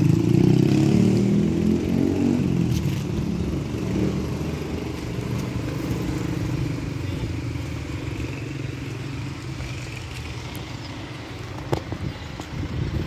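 A motor vehicle engine running close by, its pitch shifting in steps during the first few seconds, then fading into a steady low rumble of traffic. A short sharp knock comes near the end.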